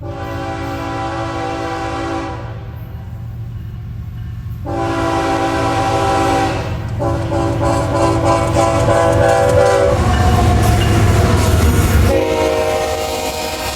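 CSX freight locomotive's multi-chime air horn sounding several long blasts with short gaps, over the low rumble of the diesel engine and wheels on rail, growing louder. About ten seconds in the horn's pitch slides down.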